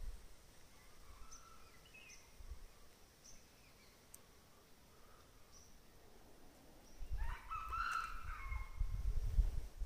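Junglefowl crowing about seven seconds in, a call that rises and falls and is the loudest sound, over a low rumble. Faint short bird chirps come before it. The narrator takes the junglefowl's clamour as a warning that an enemy animal is moving about.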